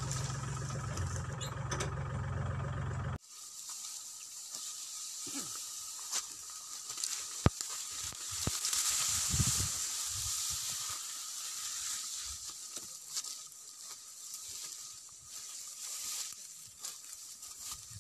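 A small farm tractor's engine runs steadily as it tows a trailer, then cuts off abruptly about three seconds in. After that comes a hissy rustling of dry cogon grass with scattered crackles and clicks.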